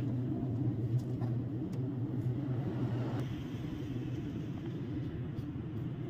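Steady low rumble with a constant hum, the kind made by a running motor vehicle or passing traffic, with a few faint short high sounds over it.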